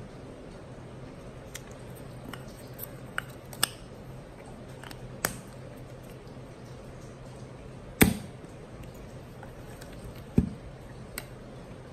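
Small clicks and knocks of a 35mm film cassette and a Hasselblad XPAN II camera being handled during film loading, with one loud sharp snap about eight seconds in and a duller knock a couple of seconds later.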